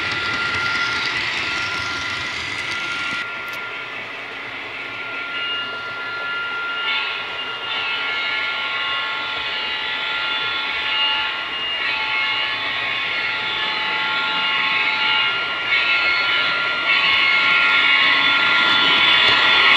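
HO scale model locomotive's DCC sound decoder playing a diesel engine sound through its small onboard speaker, over the rolling of model freight cars on the track. It gets louder near the end as the locomotive comes closer.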